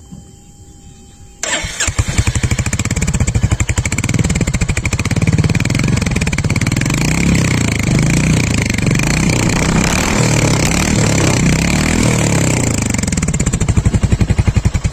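Royal Enfield Hunter 350's single-cylinder engine starting suddenly about a second and a half in and running through its stock exhaust with a bassy note, stopping at the very end.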